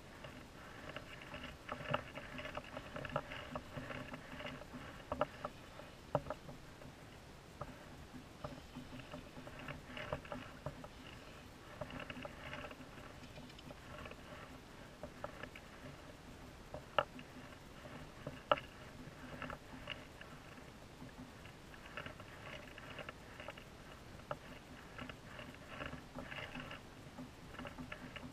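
Fishing reel being cranked in spurts, a fast ticking whir, as a hooked snapper is wound in. A few sharp clicks and knocks come against a low background hiss.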